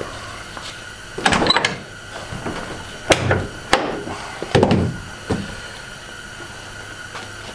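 Several knocks and thuds as the plastic snorkel body and the Jeep Wrangler JK's hood and fender are handled during a test fit: a cluster about a second in, sharp single knocks around three and four seconds, and another cluster near five seconds.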